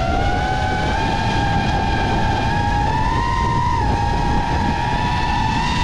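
FPV drone's electric motors whining at a high pitch over a rough rushing noise. The whine climbs a little in the first second, bumps up and dips around the middle with throttle changes, then holds steady.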